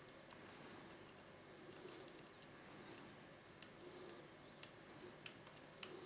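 Faint, irregular metallic clicks and ticks of a hook pick and tension wrench working inside a Medeco Original lock cylinder, against its six rotating pin tumblers. The clicks are sparse, with a few sharper ones in the second half.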